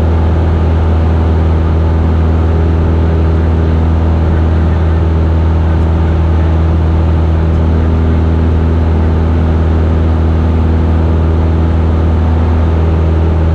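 Single-engine Cessna's piston engine and propeller running steadily in flight, heard inside the cockpit: a loud, even low hum with evenly spaced overtones over a rush of airflow noise.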